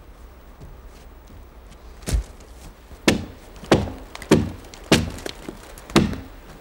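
Hand axe chopping into a felled tree trunk: six sharp blows, starting about two seconds in and coming roughly every half second, with a fainter knock between the last two.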